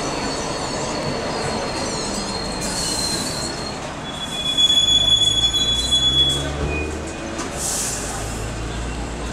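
MTR Light Rail car running slowly into the stop, its steel wheels squealing on the rails over the low rumble of the car. The thin, high squeal drops to a lower pitch about three and a half seconds in, and it is loudest between about four and a half and six seconds.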